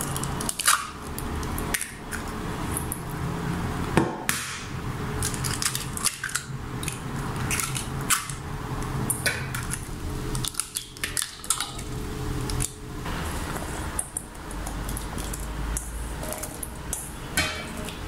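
Eggs being cracked on a stainless steel mixing bowl and dropped in one after another: sharp taps and clinks against the metal every few seconds. Near the end, crumbled feta is pushed by hand from a second metal bowl into the eggs.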